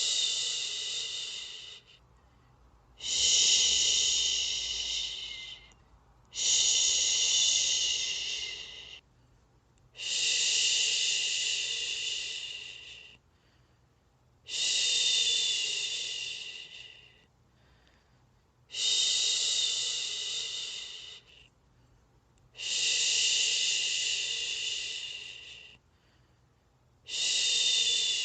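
A person's voice shushing a baby to sleep, 'shhh' over and over: a long hiss that starts sharply, lasts two to three seconds and tails off, repeated about every four seconds with a short silent pause for breath between.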